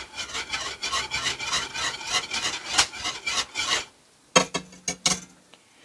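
Wire whisk stirring rapidly in a pot of soup, a fast scraping rasp against the pot as the egg-lemon sauce is whisked into the chicken and rice soup. It stops about four seconds in, followed by a few sharp knocks.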